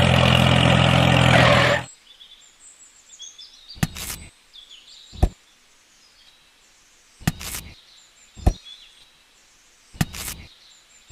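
DIY mini tractor's motor running steadily, then cutting off abruptly about two seconds in. Afterwards a few light knocks and clicks sound as the model is handled, with faint bird chirps behind them.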